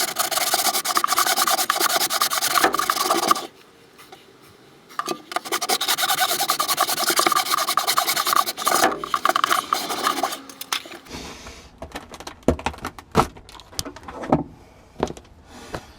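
A saw cutting through plywood in two runs with a short pause between, the first about three seconds long and the second about five. Scattered knocks and clatters follow near the end.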